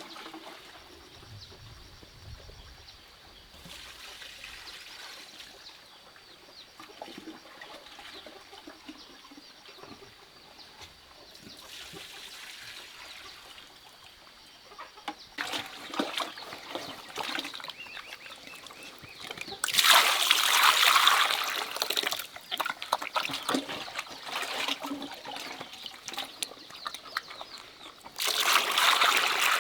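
Water splashing and trickling, with louder bursts of splashing about twenty seconds in and again near the end.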